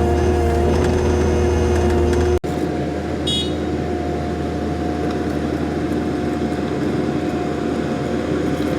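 Kubota 90-2 skid steer's diesel engine running steadily under work. The sound breaks off for an instant about two and a half seconds in and carries on a little quieter with a different engine note, and a brief high-pitched beep sounds just after.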